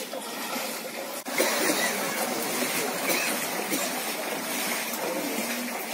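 Steady hiss of rain and floodwater, with a short dropout about a second in, then slightly louder with faint voices in the background.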